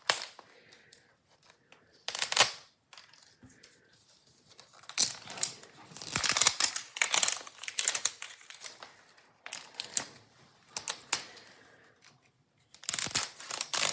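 Plastic wrapping on a Mini Brands blind ball crinkling and tearing as it is peeled off, in irregular crackly bursts that are busiest in the middle and again near the end.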